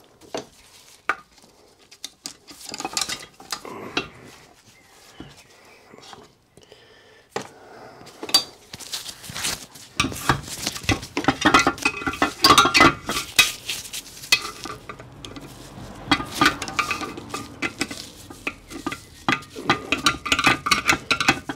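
Hand tools scraping, clinking and tapping against a small split pin and the cast-iron engine frame as the pin is worked loose. Scattered clicks at first, then busier, louder scraping and rattling from about halfway in.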